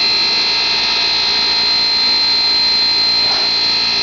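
Steam locomotive standing close by, giving off a steady hiss with an even high-pitched whine.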